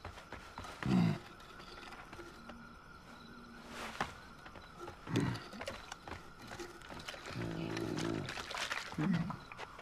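Sabretooth cat growling and snarling in short, deep bursts, with a longer rumbling growl about seven and a half seconds in.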